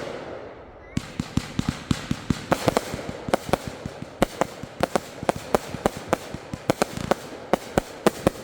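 Consumer fireworks going off: a loud bang at the start, then from about a second in a rapid, irregular string of sharp pops and cracks, several a second, lasting about seven seconds.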